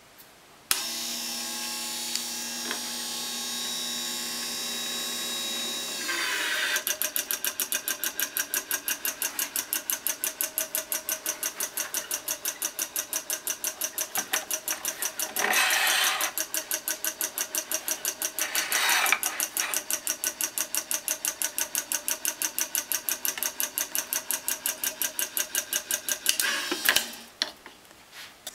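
Point Swiss electro-stringer's electric tensioning motor, switched on with a sharp start. It runs with a steady hum for about five seconds, then settles into a fast, even pulsing of about three to four beats a second, with two brief louder stretches, before stopping near the end.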